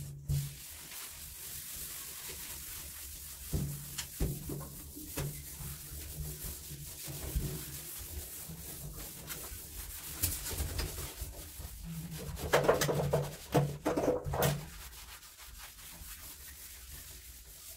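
Hand scrubbing of tiled bathroom surfaces: irregular rough rubbing strokes, with a louder run of hard scrubbing about three quarters of the way through.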